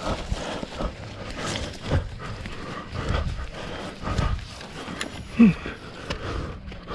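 A racer's hard breathing and footfalls while running, with a short low grunt, falling in pitch, about five and a half seconds in.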